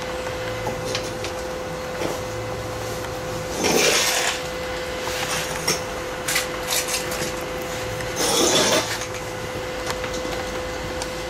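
Plasma cutter on a car's suspension arm: two short hissing blasts, each under a second and about four seconds apart, over a steady hum, with light metallic clicks of tool handling in between.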